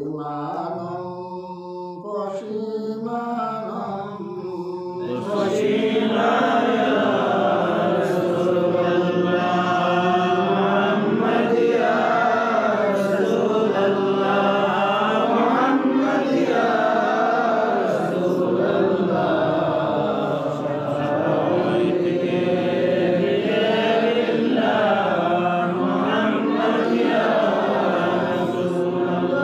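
Voices chanting durood sharif (salawat on the Prophet) in the melodic style of a Bengali milad. It starts thinner and grows fuller and louder about five seconds in, as more voices take up the chant.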